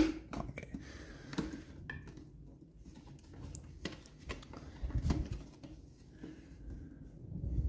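Hard plastic Minion popcorn bucket being handled, with scattered light clicks and knocks of plastic parts and a louder knock about five seconds in.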